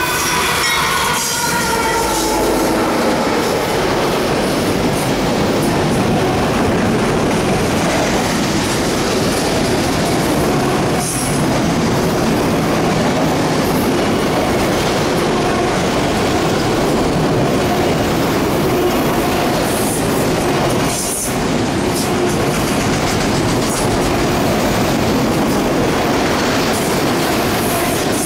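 The lead diesel locomotives of a freight train pass close by as the horn's last sound falls away in pitch at the start. A long string of empty autorack cars then rolls past with a steady, loud rumble and clatter of wheels on rail, and a few brief high wheel squeals.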